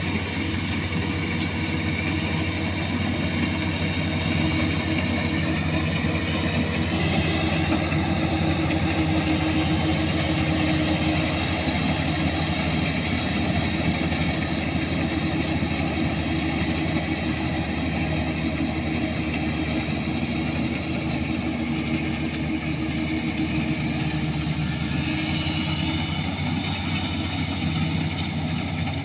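Kubota combine harvester's diesel engine running steadily under load, a continuous machine drone with a slight shift in pitch about a quarter of the way through and again near the end.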